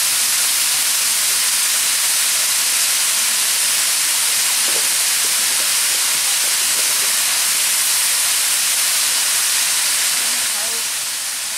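Freshly added diced sweet potatoes frying in hot oil in a pan: a steady, high sizzle that eases slightly near the end.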